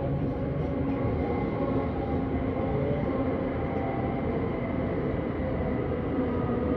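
Vienna S-Bahn electric commuter train running, a steady rumble with a level whine from the traction equipment.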